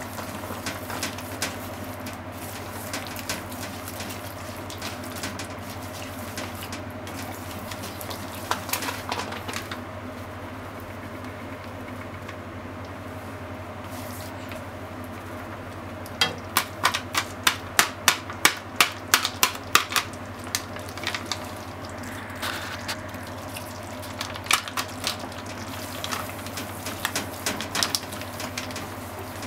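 Ground chicken simmering and sizzling in liquid in a frying pan while chopsticks stir it, clicking and scraping against the pan. Just past the middle comes a quick run of sharp taps, about three a second for a few seconds. A steady low hum runs underneath.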